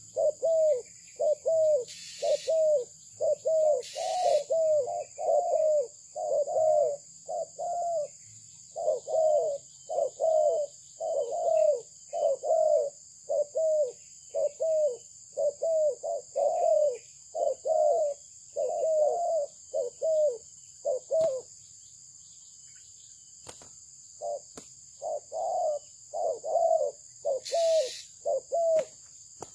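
Spotted dove (terkukur) cooing: a long run of short, repeated coos, a little over one a second, with a pause of about three seconds past the middle. A steady high hiss lies underneath.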